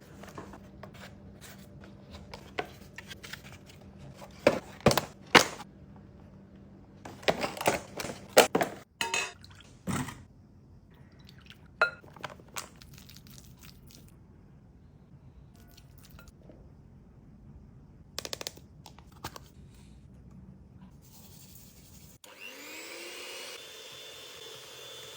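Kitchen food-prep handling sounds: sharp clicks and knocks of utensils and containers in irregular clusters over a low steady hum. Near the end a small electric kitchen appliance motor starts, its whine rising as it spins up.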